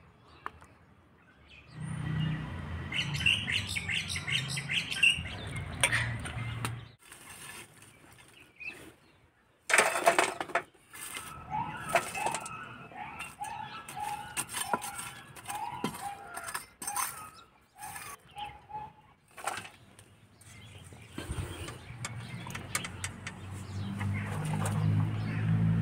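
Charcoal being scraped and knocked out of a clay mud stove with metal tongs, with many short clinks and scrapes. Birds call in the background with a run of short repeated chirps mid-way, and a low engine hum rises near the end.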